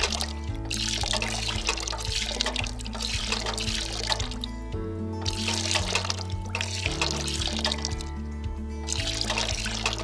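Background music over water trickling and splashing from a tin crow garden fountain, falling from the crows' beaks into its metal basin. The water sound cuts out briefly twice, once midway and once near the end.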